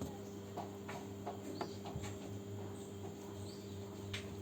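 Steady low electrical hum with faint, scattered clicks and ticks from bench work, and a few faint bird chirps in the background.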